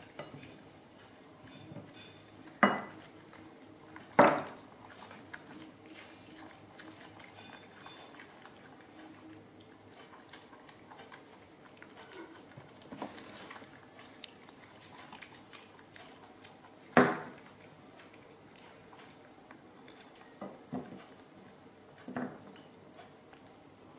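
Clinks of a dish on a hard tabletop as baby macaques handle jackfruit beside a plate: three sharp clinks, two close together a few seconds in and one past the middle, and two softer ones near the end. Faint small clicks and smacks of the monkeys eating run underneath.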